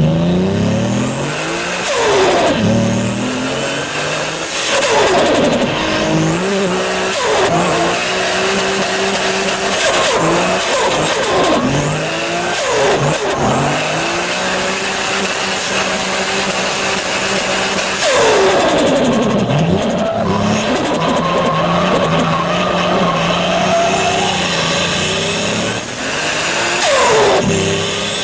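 Turbocharged car engines revving hard again and again, a high turbo whistle climbing and holding with each pull, then the revs falling away on lift-off with turbo flutter.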